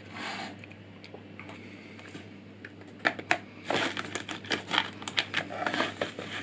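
Small parts being handled by hand: a brief rustle near the start, then from about three seconds in a quick run of clicks, taps and rustles as components are picked up and moved about.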